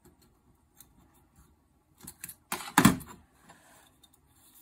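Piston ring expander pliers spreading a piston ring over a piston and releasing it into its groove. A few light metallic clicks, then a short, louder metallic clatter about two and a half seconds in, followed by faint handling rubs.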